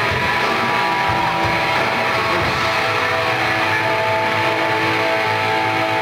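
Rock band playing live, electric guitars over drums, with held notes and no pause.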